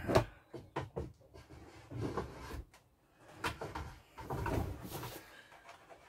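Handling noise as a small TV is fitted into place under a cabinet: one sharp knock just after the start, then scattered small clicks, bumps and rustling.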